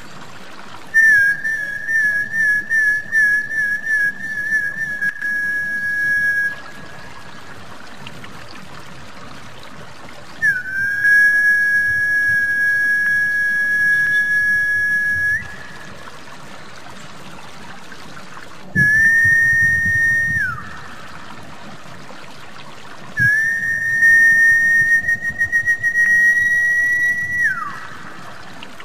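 Snakehead-fish lure whistling: four long, high whistled notes over a faint steady trickle of water. The first note warbles. The third and fourth notes end with a quick downward slide.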